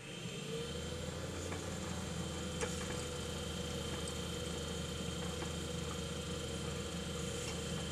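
Philips-Norelco EL3586 reel-to-reel tape recorder in rewind: its motor and reels run with a steady whirring hum that settles in pitch during the first half second. The rewind is driven by the original, slightly loose rubber belt, so it is not very strong.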